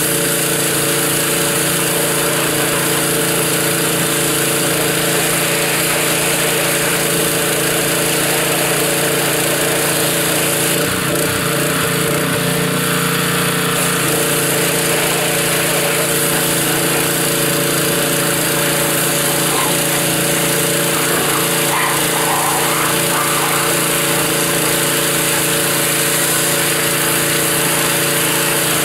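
Pressure washer running steadily, its motor hum under the hiss of the spray, with a brief change in tone about eleven seconds in.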